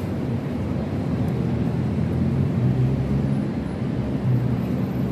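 Outdoor city street ambience: a steady low rumble of road traffic, swelling a little as vehicles pass.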